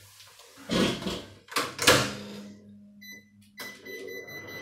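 A 1500-watt microwave oven being shut and started: a couple of knocks of the door and handling in the first two seconds, then the oven's steady low hum running, with short electronic beeps from the control panel about three seconds in.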